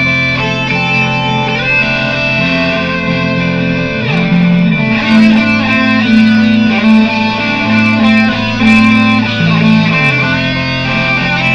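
Electric guitar improvisation over a looped guitar layer: held, ringing notes, with low notes sliding up and down between pitches.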